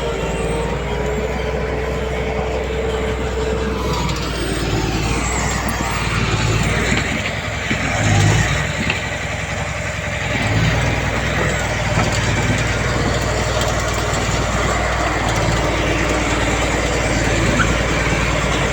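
Heavy diesel earthmoving machinery running steadily, with a brief louder swell about eight seconds in.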